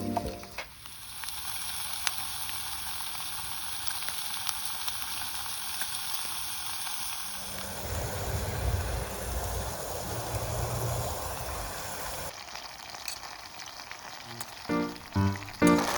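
Food sizzling and crackling as it fries in a pan, a steady hiss that turns rougher and fuller about halfway through. Background music comes in near the end.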